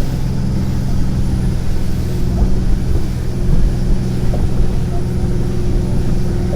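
Parasailing boat's engine running steadily under way, a constant low drone with a rumble of wind and water beneath it.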